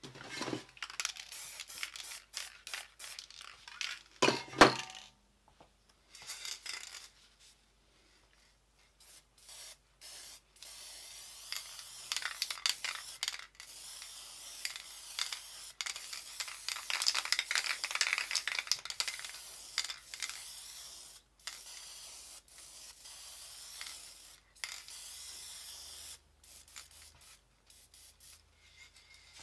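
Aerosol spray paint can hissing in bursts that start and stop abruptly, longer and denser in the second half. Scraping and handling noises, with one sharp knock about four and a half seconds in.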